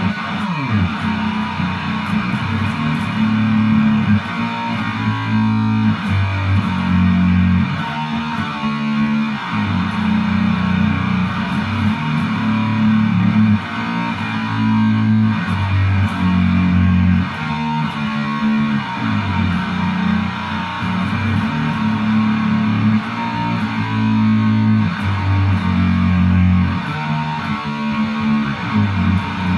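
Rock music with electric guitar over a bass line.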